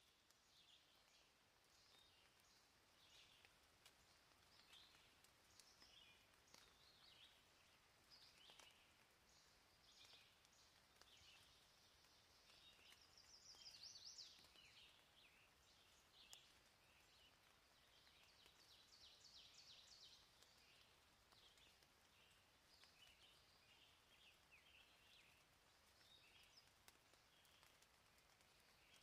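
Near silence: faint outdoor ambience with small birds chirping intermittently in the background, including a quick, slightly louder trill about halfway through.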